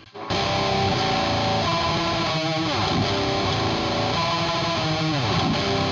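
Distorted Fender electric guitar playing a heavy pre-chorus riff, coming in a moment after the start, with two downward slides, one near the middle and one near the end.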